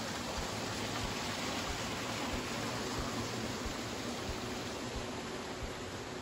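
Steady rush of water running over rocks in a shallow mountain stream, the water channelled through a trout farm's ponds.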